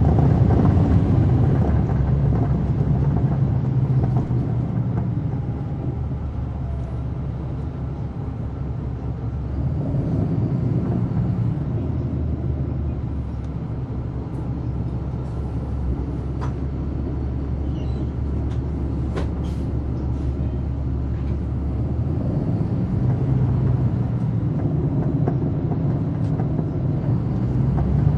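Caterpillar C13 inline-six diesel of a 2009 NABI 40-SFW transit bus, heard from inside the bus as it drives. The engine note swells and eases off several times, with a few light clicks and rattles around the middle.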